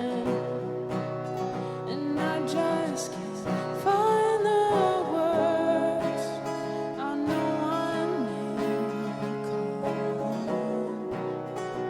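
Worship band playing a song, a singer's voice over acoustic guitar, keys, bass and drums.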